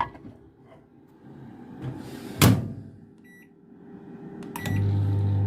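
Microwave oven being used: a door slam about two and a half seconds in, a short run of keypad beeps, then near the end a click and the steady hum of the oven starting to run.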